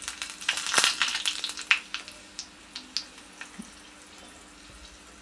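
Hot oil sizzling and crackling in a small pan of tempering (mustard seeds, dried red chillies and curry leaves frying). The pops come thick at first, then thin out and fade after about three seconds.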